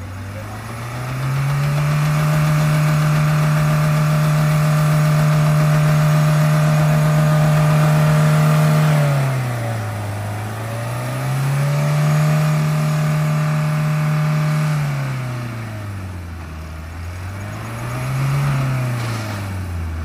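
Mahindra Thar's engine revving up and held at high revs for about seven seconds, pulling the 4x4 up a soft sandy rut. It eases off, revs and holds again for a few seconds, then gives one shorter rev near the end.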